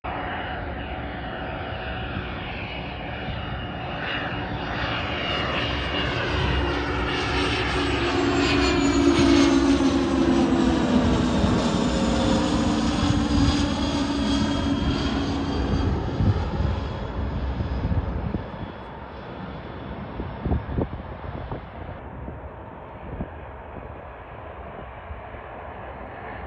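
Cessna Citation CJ2+ business jet with two Williams FJ44 turbofan engines, passing low overhead on final approach. The jet whine and rush build to a peak about ten seconds in, sweep down in pitch as it goes by, and fade away after about eighteen seconds.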